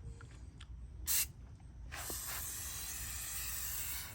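Aerosol can of Amsoil engine degreaser spraying onto a greasy timing chain cover: a short burst about a second in, then a steady hiss of continuous spraying from about two seconds in until near the end.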